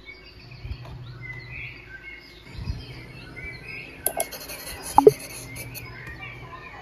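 Birds chirping in the background over a faint low hum, with a couple of sharp clicks about four and five seconds in.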